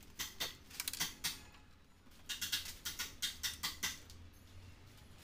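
Light clicks and taps from hands working on the plastic back cover of a large LCD TV: a few in the first second or so, then a quick run of them from about two to four seconds in.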